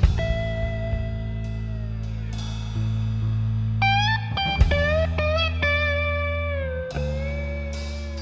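Background music: electric guitar playing bending, sliding notes over a bass line and drums.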